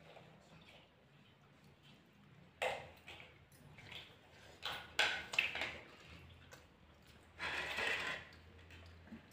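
Eating by hand from plates and bowls: scattered sharp clicks and taps of dishes, the loudest about five seconds in, and a short noisy burst about seven and a half seconds in.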